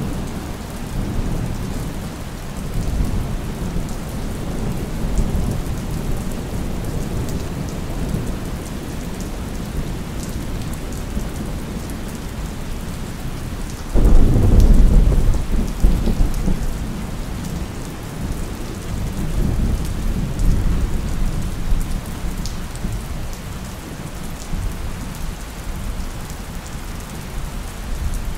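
Steady rain with thunder rumbling low beneath it. About halfway through, a sudden loud thunderclap breaks in and rolls away over several seconds.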